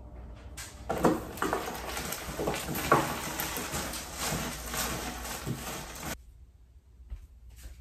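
Cardboard jigsaw puzzle pieces being broken up and stirred by hand across a tabletop: a dense, uneven rustling clatter of many small pieces that stops abruptly about six seconds in.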